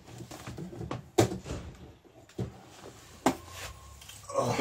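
Knocks and clicks of plugs and cables being handled and connected behind a workbench: three sharp knocks about a second apart, then a brief scraping rustle near the end.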